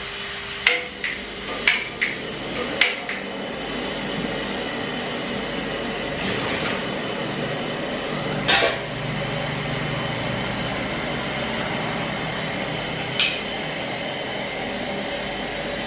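A hand lighter clicking in three quick pairs as a table-top gas burner is lit, then a steady even noise from the lit burner. A metal pot clanks once about halfway through, and there is a lighter knock near the end.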